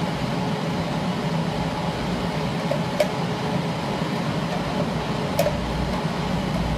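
Cooling fan of an induction cap sealing machine running steadily, with two sharp clicks, about three seconds and five and a half seconds in.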